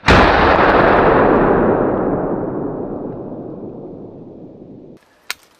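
A .50 caliber TVM flintlock muzzleloading rifle firing: one loud black-powder shot whose rumble rolls away over about five seconds, then cuts off suddenly. Near the end, a single sharp click of flint struck on steel.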